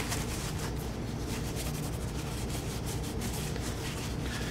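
Paper towel wetted with acetone being rubbed over a carbon-steel pistol slide, a steady scratchy rubbing as the slide is degreased before bluing.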